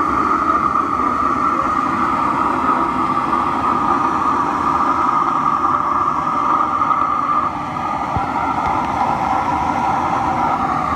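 Forced-air furnace running: a steady roar from the burner and its electric air blower, with a constant whine on top. It drops a little in loudness about seven and a half seconds in.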